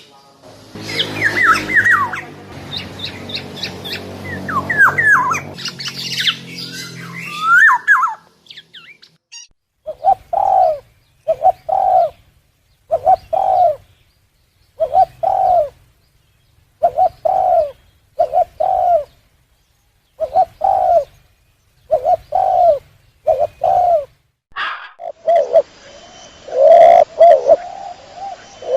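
Bird calls: for about the first eight seconds a songbird chirps in quick, rising and falling notes over a low hum. Then a dove coos in short two-note phrases, repeated about every one and a half to two seconds with silence between.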